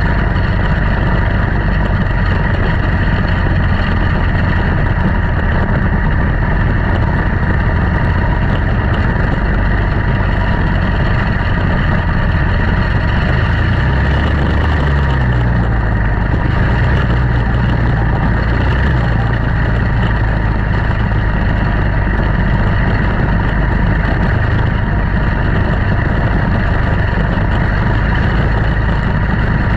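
Quarter midget race cars' small single-cylinder Briggs & Stratton Animal engines running continuously together as the field laps the track, their pitch shifting from about halfway through.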